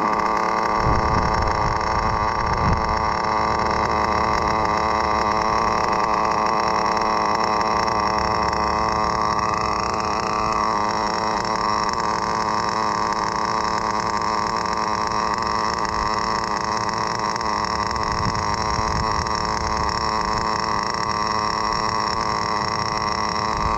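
Novarossi/Gimar Mito .12 nitro engine of an RC car running steadily, a continuous pitched drone with a brief rise and fall in pitch about ten seconds in.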